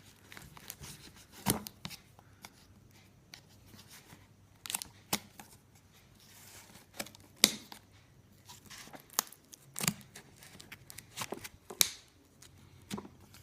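A tightly wrapped parcel being torn open by hand: irregular rips of tape and packaging, with crinkling and scattered sharp clicks and knocks.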